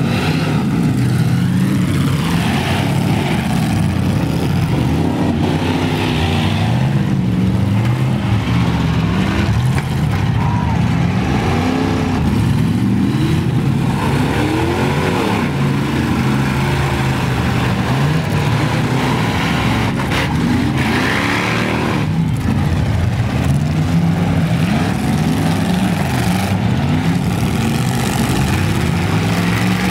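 Engines of several full-size demolition-derby pickup trucks revving up and down over one another, their pitches rising and falling every second or two as the trucks accelerate, back up and manoeuvre.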